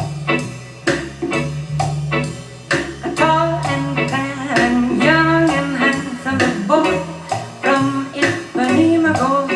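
Jazz female-vocal track played back on a hi-fi system: a woman singing over a steady bass line and a regular beat, her voice coming in strongly about three seconds in.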